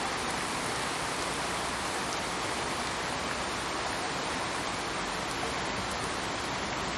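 Steady rain falling, an even, unbroken hiss of rainfall.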